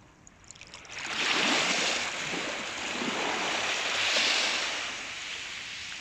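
Sea surf washing in over the shallows: a hissing rush of water that builds about a second in, swells again around four seconds, then slowly fades.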